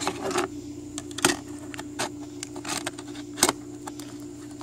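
Plastic phone case clicking and snapping as an iPhone is pressed and fitted into it by hand: scattered sharp clicks, the loudest about three and a half seconds in, over a steady low hum.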